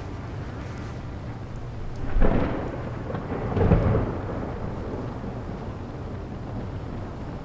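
Thunder: two loud claps about a second and a half apart, the second rumbling away over the next couple of seconds, over a steady background noise.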